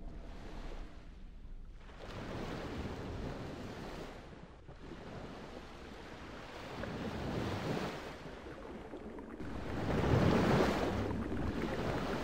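Ocean surf: waves washing in slow surges that swell and fade every few seconds, loudest near the end.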